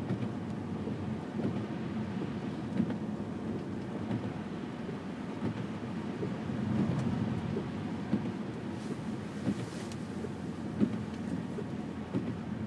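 A car's interior road noise while driving on a snowy road: a steady low rumble from the engine and tyres, with a few small knocks and a faint passing hiss about nine seconds in.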